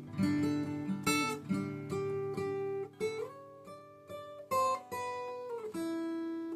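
Acoustic guitar playing an instrumental piece: strummed chords and picked notes, a few of them sliding up or down in pitch.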